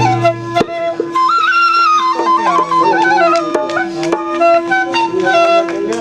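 Alghoza, the Sindhi double flute, being played: one pipe holds a steady drone while the other plays a wandering, trilled melody above it. A few sharp taps sound underneath.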